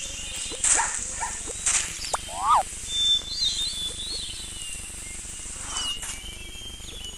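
Wild animal sounds: a short call that rises and falls in pitch, heard once about two and a half seconds in, over high bird-like whistles.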